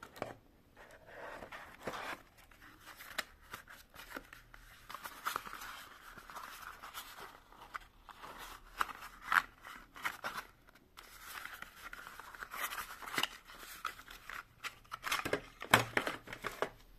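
Cardboard and plastic-film packaging rustling and scraping as items are lifted out of a box by hand, with many small clicks and taps. The sharpest knock comes about a second before the end.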